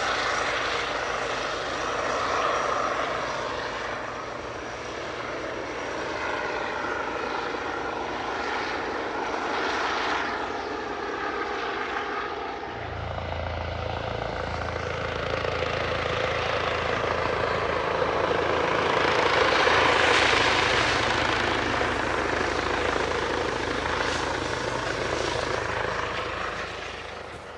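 Helicopter flying past, its engine and rotor noise swelling and fading with slowly sweeping tone. A deeper hum joins about halfway through, and the sound is loudest about two-thirds of the way in.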